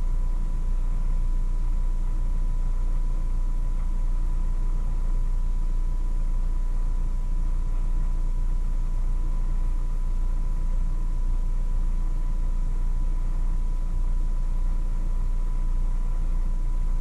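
Steady low rumble with a thin constant tone above it, unchanging throughout.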